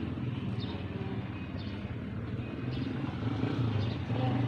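A motor vehicle's engine running on the road, a steady low hum that grows a little louder near the end.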